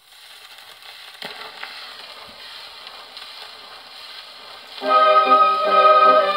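HMV 102 portable wind-up gramophone playing a 78 rpm shellac record: the steel needle runs through the lead-in groove with steady surface hiss and crackle and a click about a second in. Near five seconds the record's music starts loudly through the gramophone's acoustic horn, the instrumental introduction of a 1949 Japanese popular song.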